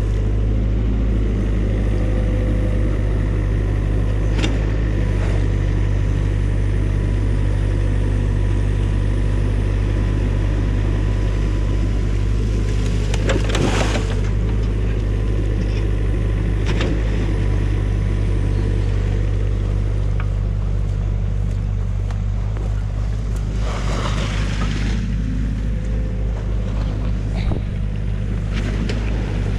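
Diesel engine of a New Holland mini excavator running steadily at working speed. Two short rushes of noise break through, midway and again later on.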